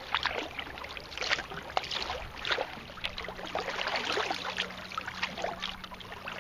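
Kayak paddle strokes: the blades dipping into choppy lake water with irregular splashes and drips.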